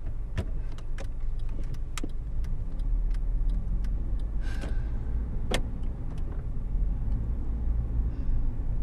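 Steady low rumble of a car driving, heard from inside the cabin, with a few scattered light clicks and a brief rush of noise about halfway through.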